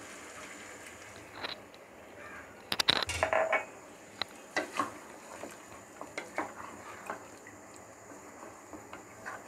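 Water poured from a glass into a pot of fried spiced beef, then a wooden spatula stirring the meat and liquid. Scattered knocks and scrapes sound against the pot, the loudest a cluster about three seconds in.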